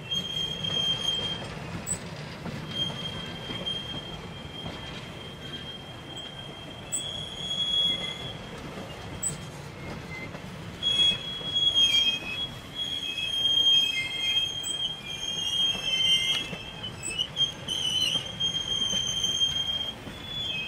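Train wheels squealing against the rails as a line of passenger coaches rolls past: a high, steady squeal that keeps breaking off and returning, with extra squeal tones joining in during the second half. Under it runs a low rumble, with an occasional sharp click of wheels over the rail.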